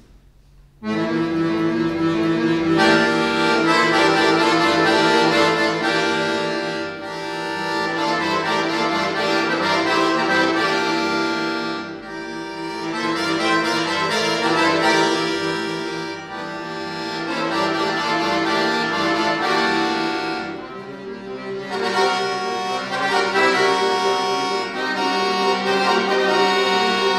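Solo chromatic button accordion playing: after a short pause the music starts about a second in, a fast, evenly pulsed figure over a held low note, with the lower part changing about two-thirds of the way through.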